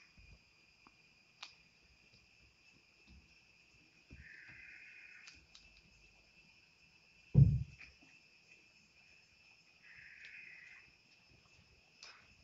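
A hand flattening a ball of rice-flour dough on an oiled banana leaf: soft patting and two short spells of rubbing, with one loud low thump a little past halfway. A faint steady high whine runs underneath.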